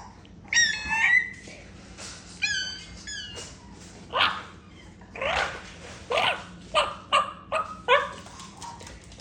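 Dog vocalising: high, wavering whines and yips, then a quick run of short barks.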